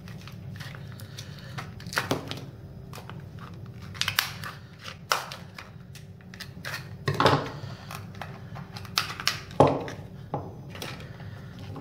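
Plastic and card retail packaging being torn and crinkled open by hand, a scatter of irregular sharp crackles and clicks, the loudest about halfway through and again a couple of seconds later.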